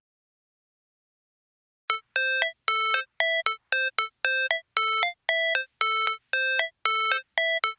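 Silence for about two seconds, then a synthesizer riff of short bell-like notes, about three a second, moving between two pitches: the intro of a rap track.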